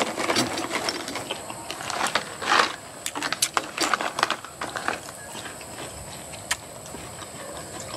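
A crinkly snack pouch rustling as fried mushroom chicharon is tipped out onto a plate, with irregular crunching and crackling as the pieces are handled and eaten. It thins out after about five seconds.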